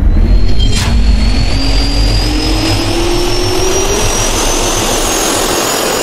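Jet engine spooling up: a steady loud roar with a high whine that rises slowly in pitch throughout, and a short rushing burst about a second in.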